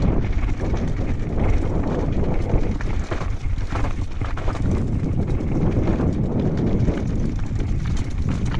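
Downhill mountain bike rattling over loose rock and gravel at speed, tyres crunching and the bike clattering with many small knocks, with wind buffeting the microphone.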